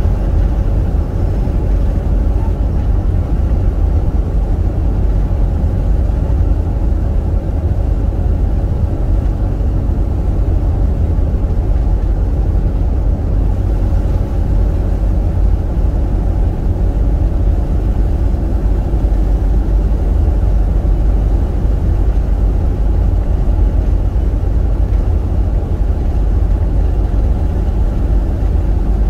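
Steady loud rumble of a Hyundai County-based camper van cruising, heard from inside the cab: engine and tyre noise, heaviest in the deep bass.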